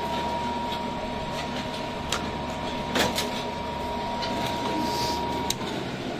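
A motor-driven machine running steadily with a thin high whine and a few sharp knocks; the whine cuts off about five and a half seconds in.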